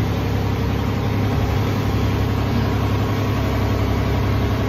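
Boat engine running steadily: an even, low hum with a steady hiss above it.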